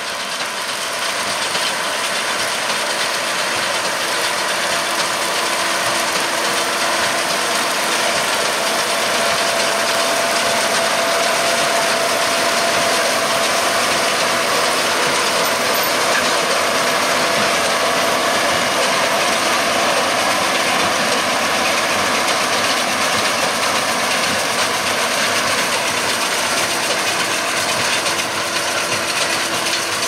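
John Deere 6210R tractor's six-cylinder engine running steadily under load as it drives a Claas Quadrant 2100 large square baler, with the baler's mechanism working as it bales straw.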